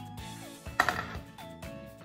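Background music with steady melodic tones, broken a little under a second in by one sharp knock from the wooden crib frame being handled.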